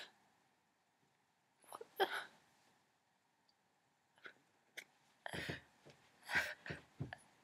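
A person's short, sharp breathy sounds, sniffs and gasps, in scattered bursts: a couple about two seconds in, then several in quick succession over the last two seconds.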